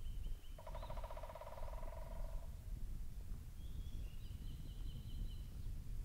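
Wild animal calls: a high, thin, rapidly pulsed trill that ends just after the start and returns for about two seconds near the end, and a lower, buzzing, rapidly pulsed call lasting about two seconds shortly after the start, over a steady low rumble.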